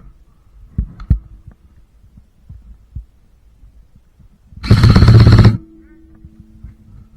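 A burst of full-auto fire from an airsoft electric gun close to the microphone, lasting about a second, about five seconds in, after a couple of faint knocks.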